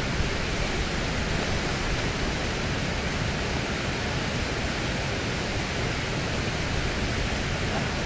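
Waterfall's steady rush of falling water.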